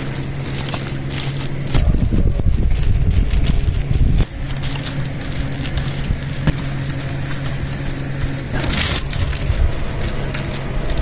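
Hands pressing and spreading minced-meat kebab mixture over a foil-lined tray: soft squishing and crinkling of the aluminium foil, with scattered small clicks. A steady low hum runs underneath, a low rumble comes in about two seconds in and drops away at four, and a short hiss comes near the end.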